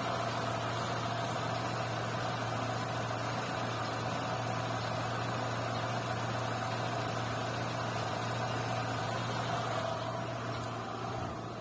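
Renault Sandero's manual gearbox giving a steady whistle, two high steady tones over the low hum of the running car.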